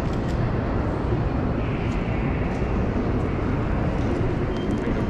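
Steady low rumble and hiss of a railway station platform beside a parked electric train, with faint clicks over it.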